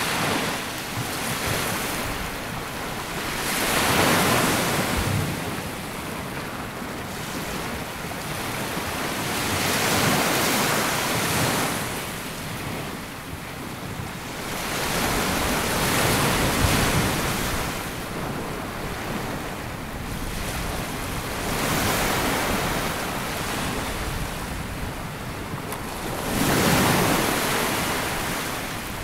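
Waves breaking and washing up a sandy beach, each surge swelling and fading, about one every five or six seconds. Wind buffets the microphone.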